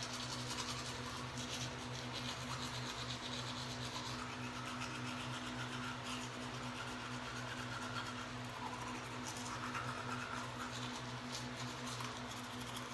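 Manual toothbrush scrubbing teeth: a steady, rapid wet brushing rasp, over a faint steady low hum.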